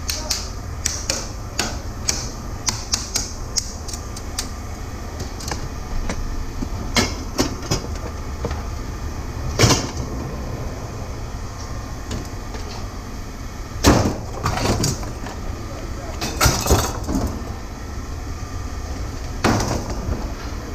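Scrap metal being handled: scattered clicks, then several sharp clanks and knocks spaced a few seconds apart, over a steady low hum.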